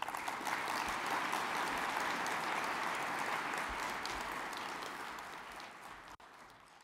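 Audience applauding, steady at first and then fading away over the last two or three seconds.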